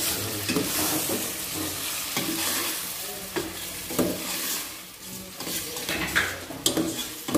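Pork pieces and carrots sizzling as they are sautéed in a stainless steel pot, stirred with a metal spoon that scrapes and knocks against the pot a few times.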